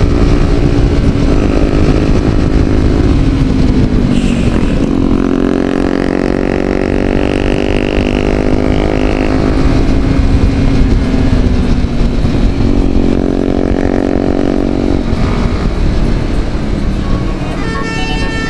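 A vehicle engine running steadily on the move, over a heavy low rumble of road and wind noise; its pitch shifts about four seconds in.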